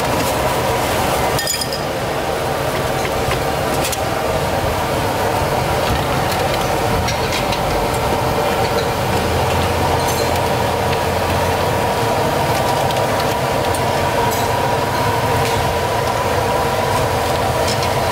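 Occasional clinks of porcelain bowls and metal utensils over a steady background rush of kitchen noise.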